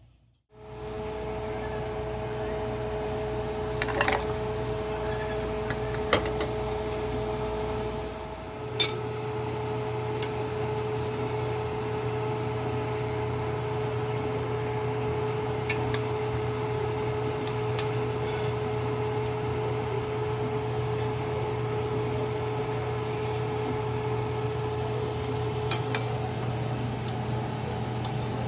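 Steady hum of a running electric kitchen appliance, with a few short clicks along the way.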